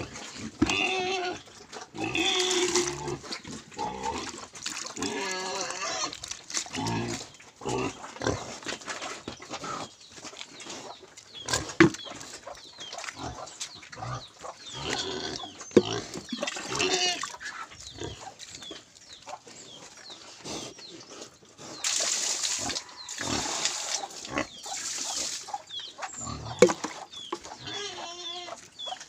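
Domestic pigs calling from their pen in a string of short grunting calls. About three quarters of the way through comes a few seconds of louder hissing noise.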